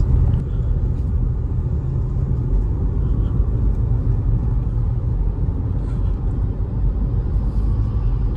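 Steady low road and drivetrain rumble inside the cabin of a 2019–2020 Toyota RAV4 driving at low speed. A faint odd mechanical noise comes in when the driver lifts off the accelerator. It is the unexplained noise the owner hears around 40 km/h, which a dealer service has not cured.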